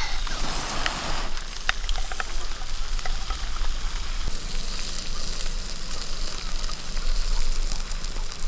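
Open cooking fire: a steady hiss with many short, sharp crackles.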